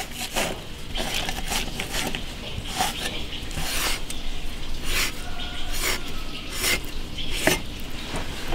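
A wide cleaver-style kitchen knife scoring a raw leg of lamb on a plastic cutting board: a run of short slicing strokes as the blade is drawn through the meat again and again.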